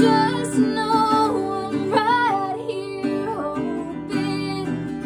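A woman singing to her own strummed acoustic guitar, the strums falling about once a second under the sung melody.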